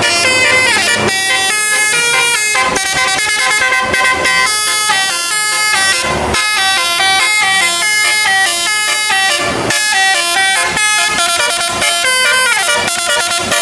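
Basuri telolet bus horn, a set of multi-tone air horns, playing fast melodic runs of stepped notes over and over.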